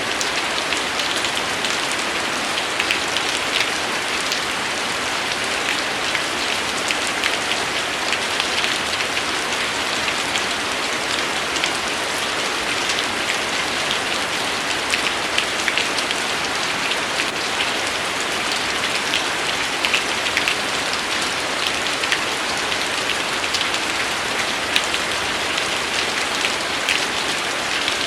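Steady rain falling: an even hiss with many individual drops ticking sharply throughout.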